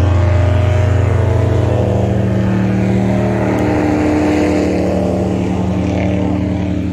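Airboat's engine and large air propeller running loud and steady under way, the engine note changing pitch about two seconds in.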